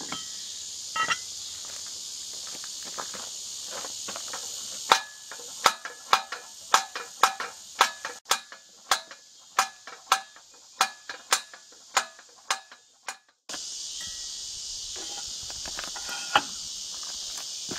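Crickets chirring steadily. In the middle comes a run of about twenty sharp, ringing metallic clicks, roughly two a second, growing fainter and further apart; the cricket sound drops out while they last and comes back suddenly after.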